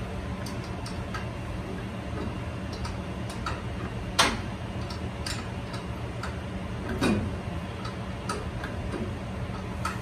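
Irregular metallic clicks and clinks of tools and hands working on a fan motor's hub and mount, the loudest a sharp clink about four seconds in, over a steady low hum.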